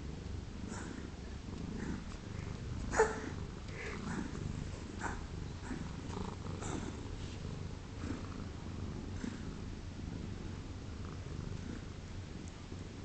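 A cat coughing and hacking over and over, trying to bring up a hairball, with a low steady rumble between the coughs. The sharpest, loudest hack comes about three seconds in.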